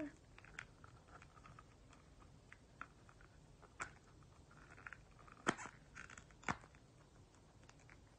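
Faint clicks and taps of long fingernails and fingers on a smartphone as it is handled and turned over, with two sharper clicks past the middle and a little soft rustling.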